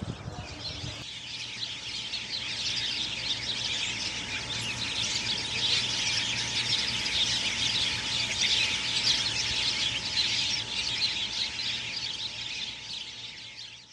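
A dense chorus of many small birds chirping all at once, with a faint steady hum underneath.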